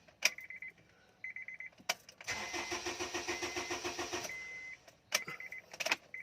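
2010 Honda CR-V engine being cranked by its starter for about two seconds, with an even rhythmic chug, without catching: a crank-no-start fault. Short bursts of rapid electronic beeping come before and after the cranking, along with a few clicks.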